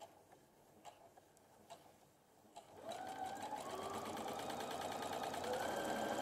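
Domestic electric sewing machine starting up about three seconds in and running steadily, stitching along a folded fabric tape; its motor whine climbs a little in pitch as it gathers speed. A few light handling clicks come before it.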